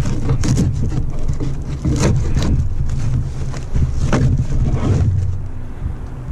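Packaging of a new brake part being cut and pulled open by hand: a few short rustles and scrapes, the strongest about two and four seconds in, over a steady low rumble.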